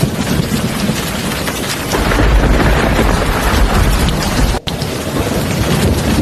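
Heavy rain pouring steadily, with a deep thunder rumble coming in about two seconds in. The rumble ends abruptly in a split-second dropout a little past halfway, and the rain carries on.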